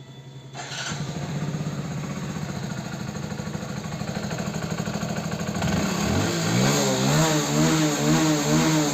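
Hero Passion Plus BS6's single-cylinder engine running, getting louder about half a second in, then its throttle blipped over and over from about six seconds in, pitch rising and falling with each blip. The valve rockers have just been re-adjusted, and the engine runs without the earlier tapping noise that had been blamed on the timing chain.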